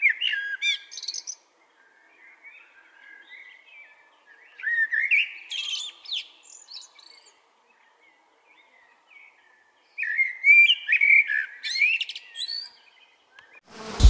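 Songbird singing in three bouts of quick, varied swooping notes, with fainter twittering between them.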